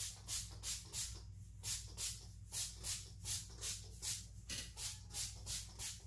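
Color Wow Dream Coat pump-spray bottle being pumped rapidly onto hair, a quick run of short hissing sprays at about three a second, with two brief lulls early on.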